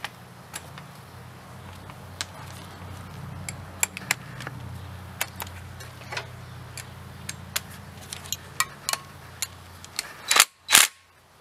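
Hand tools working on the engine's bolts: scattered sharp metal clicks at an irregular pace over a low steady hum, which stops about ten seconds in. Two louder knocks come near the end.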